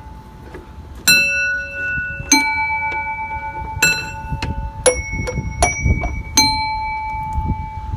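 Push buttons on a playground music panel being pressed one after another, each sounding a ringing note at a different pitch: about eight notes, the first about a second in, some held long and a quicker run of short ones toward the end.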